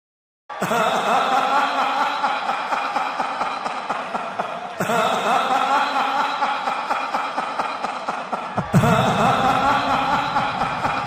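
A person's voice chuckling and laughing, in three stretches joined by abrupt cuts.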